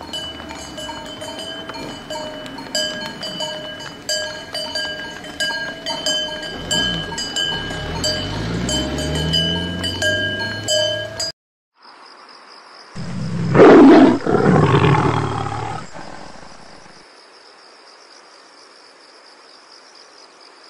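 Cowbells ringing and clanking steadily with hooves clopping on asphalt as a herd of cattle walks, and a long low animal call in the middle. After an abrupt cut, a loud roar lasts about three seconds, followed by a faint steady hiss.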